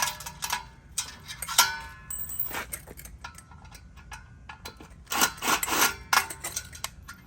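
Metal ceiling fan parts clinking and knocking with short ringing as the fan is taken apart by hand: separate clinks about a second and a half in and near two and a half seconds, and a busier run of knocks between five and six seconds.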